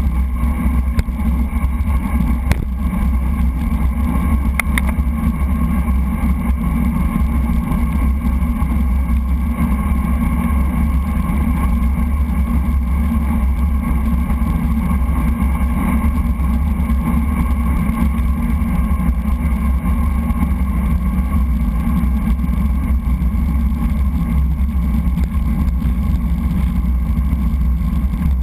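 Wind rushing over a bike-mounted GoPro and road vibration from a road bike rolling at speed, a steady heavy rumble with a constant hum. A few small clicks come in the first five seconds.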